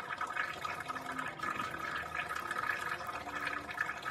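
Breath blown through two drinking straws into two small cups of water at once, making a steady bubbling.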